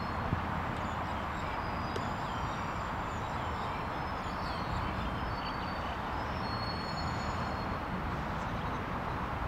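Steady hum of distant road traffic, with faint short high bird chirps over it.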